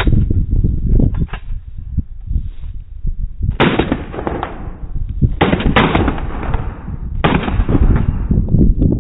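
Pistol shots on a range, from 9 mm Glock 17 pistols: a few sharp cracks early on, then three loud shots with long echoing tails, spaced a little under two seconds apart. A low rumble of wind on the microphone runs underneath.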